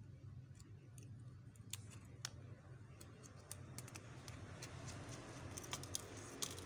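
Faint, irregular small clicks and ticks of a precision screwdriver working the tiny screws of a smartphone's plastic board cover and of the plastic parts being handled as the cover is lifted off. A steady low hum lies underneath.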